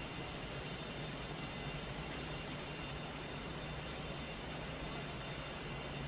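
Electric alarm bell ringing continuously, its steady metallic ring riding on an even rushing hiss.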